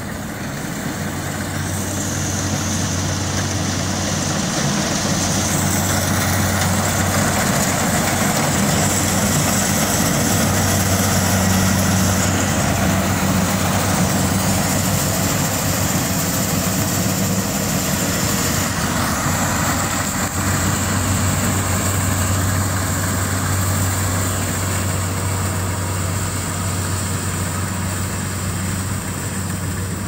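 Kubota rice combine harvester running steadily under load while cutting and threshing rice. Its diesel engine drones with a high steady whine from the machinery on top. The sound grows louder about two seconds in and eases a little near the end.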